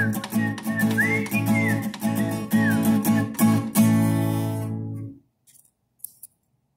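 Acoustic guitar strummed through the last bars of a song, ending on a final chord that rings and fades out to silence about five seconds in.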